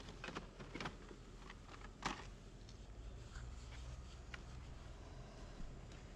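Faint clicks and rustles of carded die-cast cars in plastic blister packs being shifted about in a plastic storage tote, with a sharper click about two seconds in.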